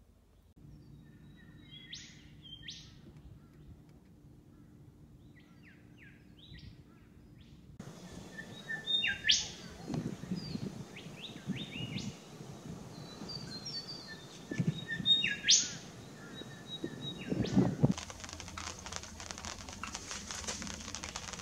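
Wild birds calling with short, sharp chip notes at irregular intervals, two of them louder, about nine and fifteen seconds in. Low bumps sound beneath the calls, and in the last few seconds a steady crackling rustle comes in.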